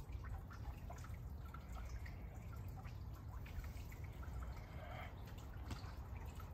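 Faint trickling and dripping of water from a tiered garden fountain, many small scattered drips over a steady low rumble.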